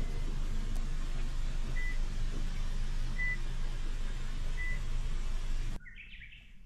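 Steady low rumbling noise with a short, high electronic beep repeating about every second and a half. It cuts off suddenly near the end, and a brief bird chirp follows.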